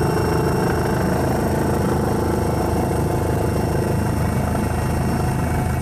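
Helicopter engine and rotor noise, a steady drone with a low hum and a faint high whine.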